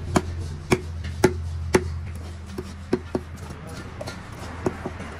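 Knife chopping on a cutting board: four sharp strokes about two a second, then a few lighter, scattered ones.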